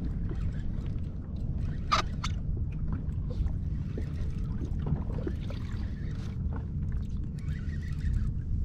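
Water lapping and sloshing against a kayak hull over a steady low wind rumble, with scattered faint clicks and one sharp knock about two seconds in.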